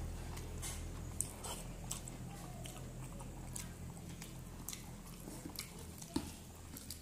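Close-miked eating sounds: a mouthful of rice and vegetables chewed, with many sharp wet clicks and smacks. A low steady hum lies underneath.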